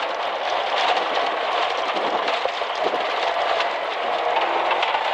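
Peugeot 205 GTI rally car's four-cylinder engine running hard on a gravel stage, heard from inside the cabin under a steady rush of tyre and gravel noise with stones clicking against the underside. A steadier engine note comes through near the end.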